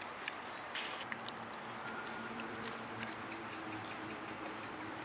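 Faint biting and chewing of fried sole fish, with scattered small clicks.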